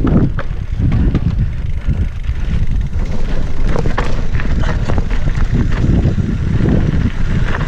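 Mountain bike riding down a dry dirt trail: steady low wind buffeting on the camera's microphone, with the tyres rumbling over dirt and rocks and frequent short rattles and clicks from the bike.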